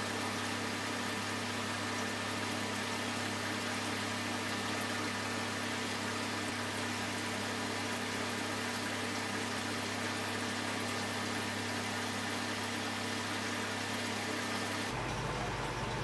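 Steady hiss with a low electrical hum and no other sound: the recording's background noise. About fifteen seconds in the hum shifts abruptly to a lower one.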